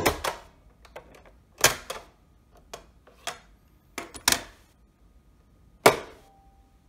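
Mechanical clicks and clunks of a Toshiba RT-2580L radio cassette recorder's cassette deck: the music cuts off as a piano key is pressed, further key and eject clunks follow as the cassette door springs open, and the door is pushed shut with the loudest, sharpest click near the end.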